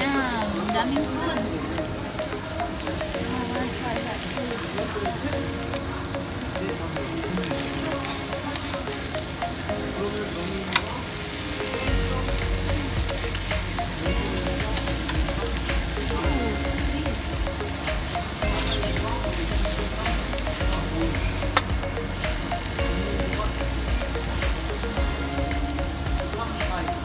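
Beef ribs and sliced beef sizzling steadily on a hot tabletop barbecue grill plate.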